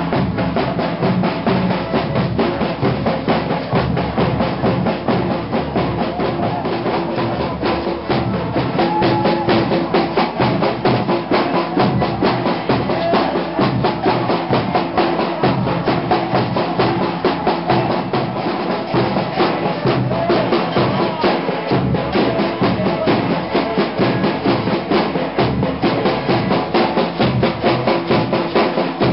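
Folia de Reis band playing, led by a caixa drum beating a fast, steady rhythm, with steady held notes from other instruments or voices underneath.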